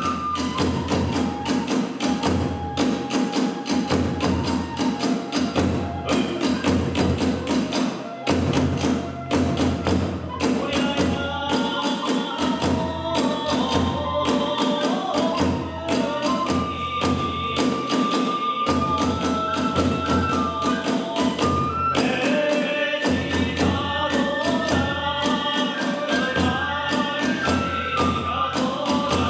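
Kagura hayashi music: taiko drums beaten in a fast, driving rhythm with small hand cymbals (tebyoshi) clashing on the beats, under a bamboo flute (fue) melody that holds long notes and then moves in quick ornamented runs.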